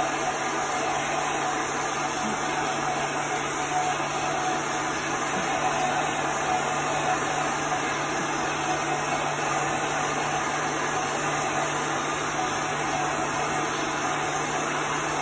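Handheld blow dryer running steadily, blowing hot air over freshly applied fabric ink to dry it. The steady rush of air carries a low motor hum.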